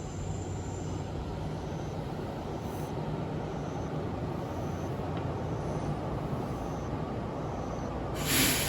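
Train rumbling past at a railroad crossing as a steady low noise, with a short sharp hiss near the end.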